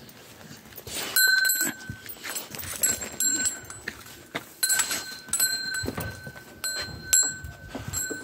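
Metal bell on a Bakarwal dog's collar clanking and ringing again and again as the dog moves about, starting about a second in, with its chain rattling.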